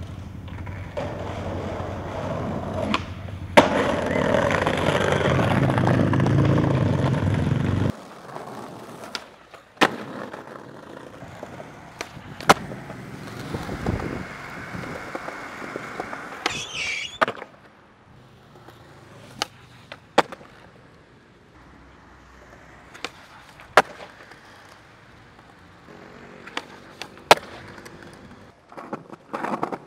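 Skateboard wheels rolling over pavement, loud for the first several seconds and quieter after a sudden change about eight seconds in. Sharp clacks of the board striking the ground recur several times throughout.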